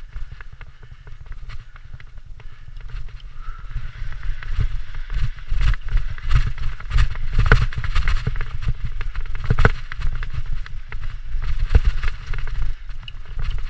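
Mountain bike riding fast down dirt singletrack: knobby tyres rolling and crunching over dirt and dry leaves, the bike rattling and clattering over bumps, with a heavy low rumble throughout. It gets louder about four seconds in as the speed picks up.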